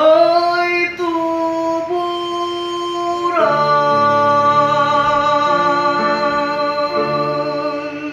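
A young male singer with electronic keyboard accompaniment finishing a song: sung notes that slide and change, then one long held note over sustained keyboard chords that change beneath it, all ending just before the close.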